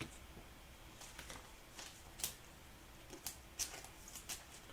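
Faint, scattered light clicks and taps of trading cards and packs being handled, about seven in all, the clearest a little over two seconds in.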